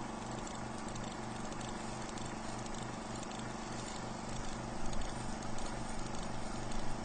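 Film projector running: a steady, rapid mechanical clatter with an even hiss beneath it.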